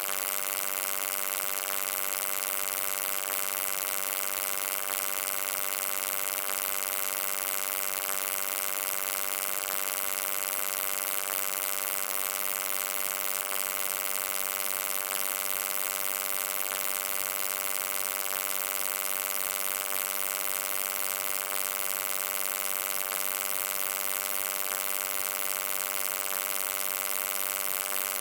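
Steady electric hum, a buzzing tone rich in overtones with a bright hiss over it, unchanging in pitch and level.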